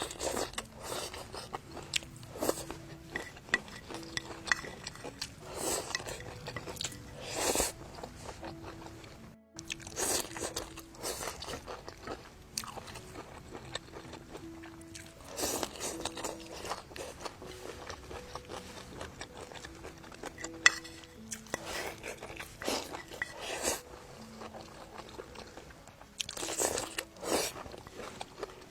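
Someone eating crunchy stir-fried toon shoots: repeated crisp bites and chewing, over background music with soft held notes.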